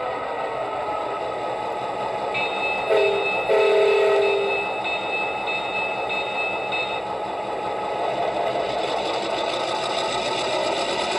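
ESU LokSound 5 sound decoder in an HO-scale EMD GP38-2 model, playing a diesel engine idling through a small speaker. About three seconds in, the horn gives a short toot and then a longer blast of about a second. A thin high steady tone sounds for a few seconds around the horn.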